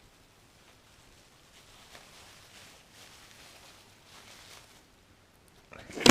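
Faint, scattered rustling of packing material being worked out from around an amplifier's valves, ending in a brief loud rustle that cuts off suddenly.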